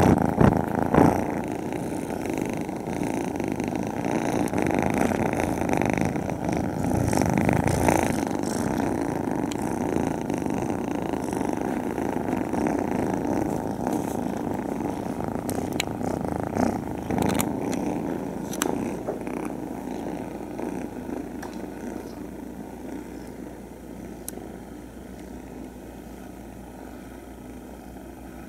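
A pile of young kittens purring together, a dense steady rumble loud and close at first and growing fainter over the last third. A few soft bumps and clicks come through as the kittens brush against the microphone.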